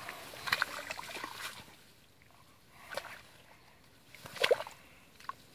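Shallow muddy water sloshing and long grass rustling in a few short bouts as a person's hands reach in to handle a snared crocodile. The loudest splash comes about four and a half seconds in.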